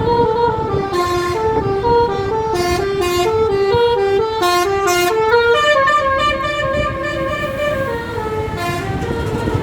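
A bus's telolet musical air horn plays a quick melody of short notes, one after another, over the low rumble of the bus.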